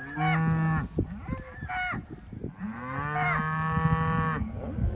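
Cattle mooing: a call about a second long, a short one near two seconds in, then a long call of nearly two seconds.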